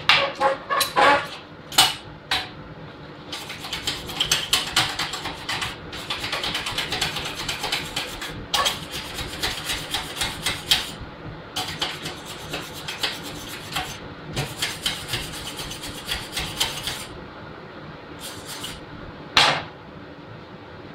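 Rapid hand scraping or scrubbing strokes on the galvanized steel garage door hinge, cleaning off the white burned-galvanizing residue around the weld. A few metal clinks and knocks come in the first seconds and again near the end.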